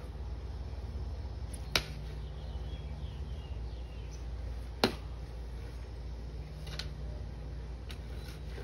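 Two sharp knocks about three seconds apart, the second louder, from a red plastic toy tool being struck down onto the dirt, over a steady low background hum.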